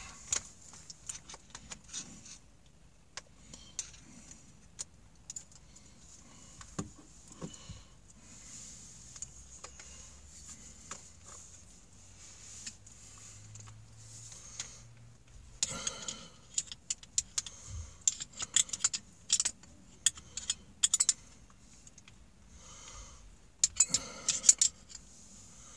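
Metal hand tools and drill parts clinking and rattling as they are handled: scattered single clicks at first, then quick runs of clinks about two thirds of the way in and again near the end.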